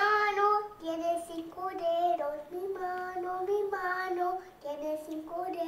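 A young boy singing unaccompanied, in short phrases of held notes.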